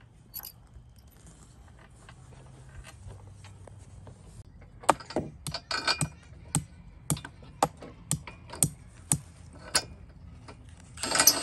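Scattered sharp metallic clicks and clinks as the bench's bolts and hardware are worked loose by hand, with a short louder clatter near the end.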